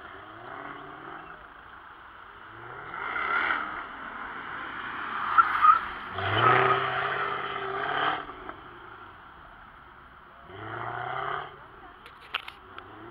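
A sports car's engine revving in bursts as the car accelerates and slows, passing close three times and loudest about six to eight seconds in. Short, sharp tyre squeals come just before the loudest pass.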